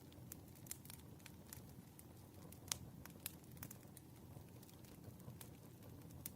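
Faint crackling wood fire: a low, even rumble of burning logs with scattered sharp pops, the loudest about two and a half seconds in.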